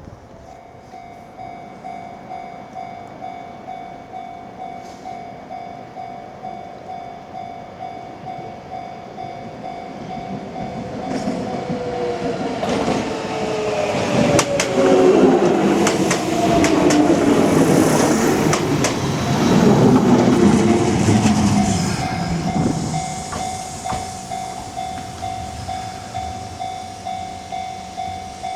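Level-crossing warning alarm ringing in even, repeated strokes while an electric train of the Kintetsu Minami Osaka Line runs through the crossing, louder from about ten seconds in, with wheels clattering over rail joints and falling tones as it passes. The train fades away in the last few seconds and the alarm rings on alone.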